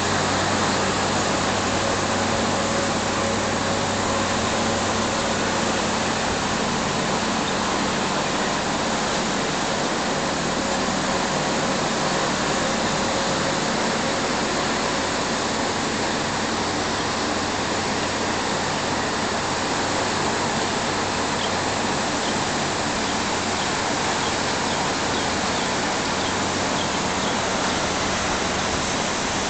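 Room air-conditioning unit running: a steady rush of fan air with a low, even hum underneath.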